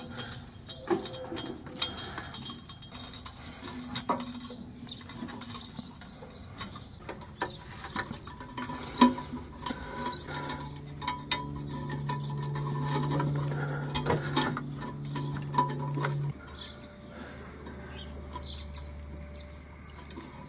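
Light clicking, ticking and scraping of copper wire being wound and twisted around the snapped exhaust pipe joint. A low steady hum sets in about halfway and drops to a lower pitch later.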